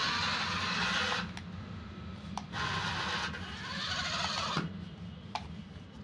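Small toy remote-control car's electric motor and gears whirring in three short runs of a second or so each as it drives on artificial grass, with a few sharp clicks between the runs.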